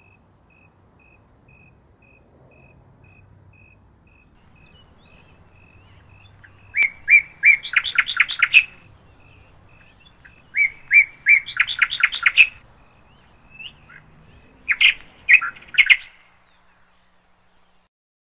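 A songbird singing three short phrases of rapid chirps a few seconds apart, with a faint, evenly repeated high note running behind them for the first half.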